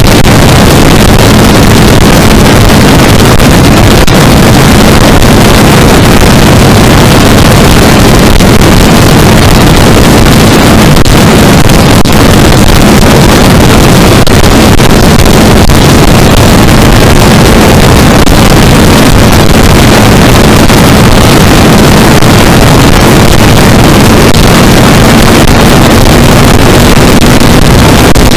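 Loud wind rush buffeting the microphone at highway speed on a Yamaha R3, with the bike's parallel-twin engine droning steadily underneath; the engine's pitch rises slightly near the end.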